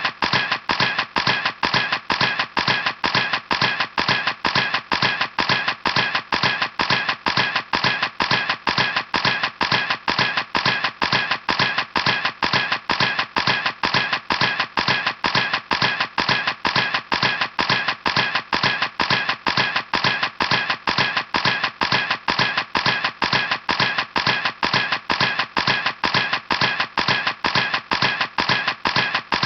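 Camera shutter clicking over and over at an even pace, about three clicks a second, each one sharp and the same as the last.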